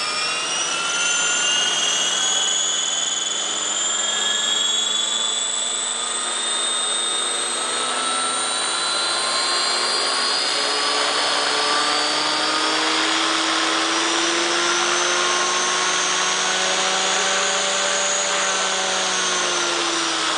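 Align T-Rex 500 RC helicopter's electric motor and rotor head whining, slowly rising in pitch for most of the time and dropping away near the end.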